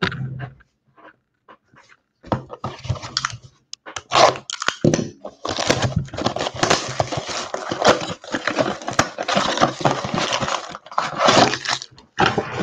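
Cardboard trading-card blaster boxes being torn open and their foil-wrapped packs pulled out and handled: a dense run of crinkling and tearing with many sharp clicks, starting about two seconds in.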